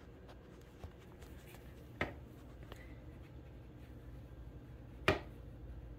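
A few short, sharp taps or clicks over a faint steady hum, one about two seconds in and the loudest about five seconds in.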